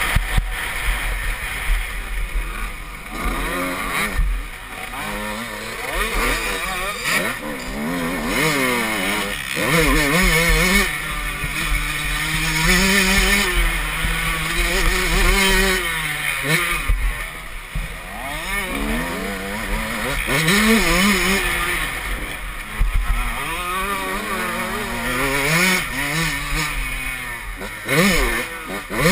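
Motocross dirt bike engine, heard from on board, revving up and dropping back over and over as the rider accelerates, shifts and rolls off around the track.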